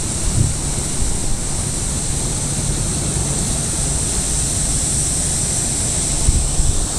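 Hurricane wind and driving rain: a steady rushing noise with a high hiss, and low rumbling of wind buffeting the microphone.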